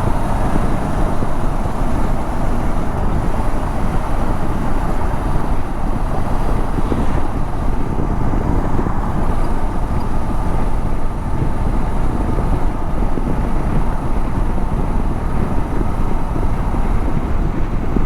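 Steady wind rush and road noise from riding a 2014 Honda CB500X motorcycle at speed, with wind on the microphone and no clear engine note above it.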